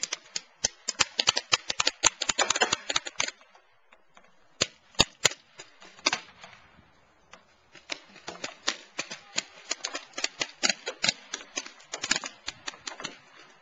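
Paintball markers firing in rapid strings of sharp pops: a dense run of shots in the first three seconds, a few scattered shots, then steady firing again from about eight seconds in.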